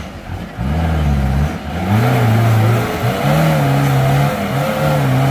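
Off-road 4x4's engine revving hard under load while reversing. The pitch climbs steeply about a second in, then holds high with brief dips as the throttle is worked.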